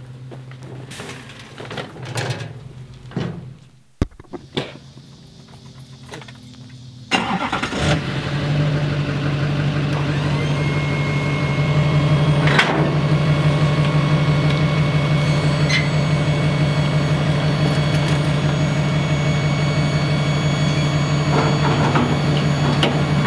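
A few knocks and clunks, then an engine starts about seven seconds in and runs steadily for the rest.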